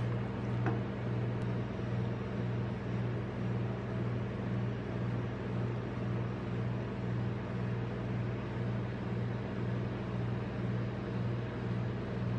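Steady low mechanical hum of a rolled-ice-cream machine's refrigerated cold plate, the compressor running to keep the steel pan frozen.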